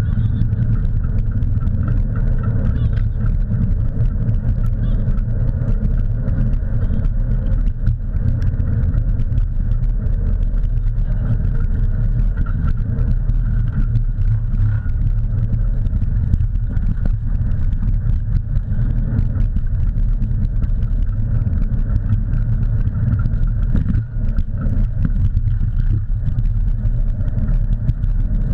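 Steady low rumble of a dog-drawn rig's wheels rolling fast over a dirt trail, mixed with wind buffeting the camera microphone.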